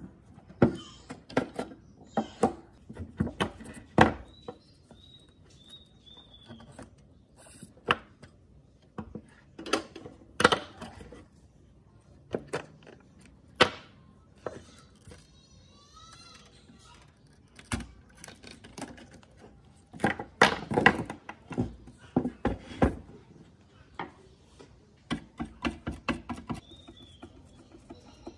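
Irregular clicks, knocks and rattles of rusty metal parts, wires and a screwdriver as an old paper laminator is taken apart by hand.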